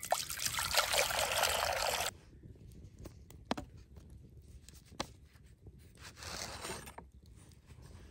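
Water poured in a steady stream into an empty cast-iron pot, stopping abruptly about two seconds in. After it come a few small clicks and a short rustle as a leather sheath is undone from a cleaver.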